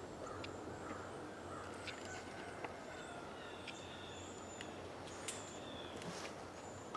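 Faint birds chirping and calling over a steady background hiss, with a few light ticks scattered through.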